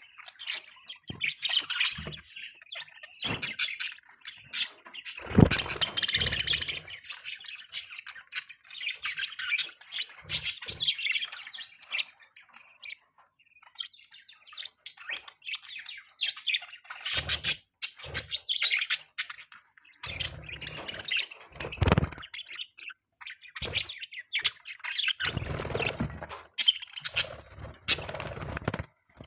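Budgerigars chirping and chattering in irregular bursts of short, high calls, with a lull about halfway through. A few dull low thumps come in among the calls.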